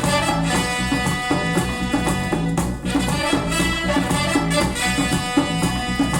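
Instrumental music with a steady beat, played back through a pair of Yamaha NS-100 two-way bookshelf speakers (160 mm woofer, 30 mm dome tweeter) as a sound test.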